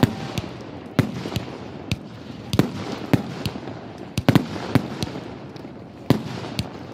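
Aerial fireworks shells bursting in a string of irregular bangs, some coming in quick clusters, each one trailing off in echo.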